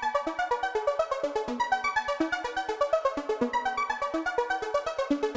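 Instrumental mobile ringtone music: a melody of short notes in a quick, steady rhythm.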